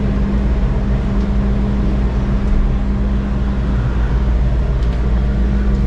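Funicular railway car running up its incline, heard from inside the car: a steady hum with a constant drone and a deep rumble underneath.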